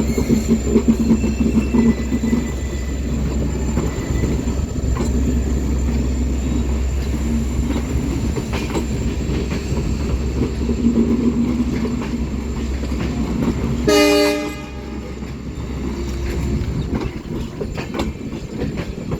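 WDG4 diesel-electric locomotive's EMD two-stroke engine running steadily as it shunts, with one short horn blast about fourteen seconds in.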